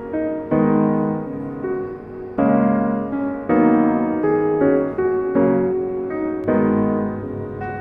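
Background music: soft piano chords, struck about once a second and left to ring.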